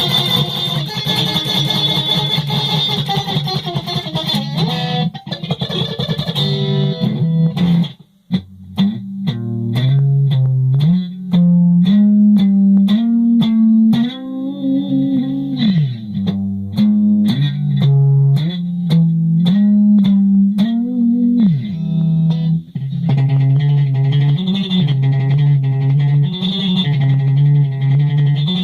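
Solo guitar improvising: plucked notes with pitch slides and bends. Ringing, overlapping notes open the passage, then after a brief break about eight seconds in come clearly separated picked notes.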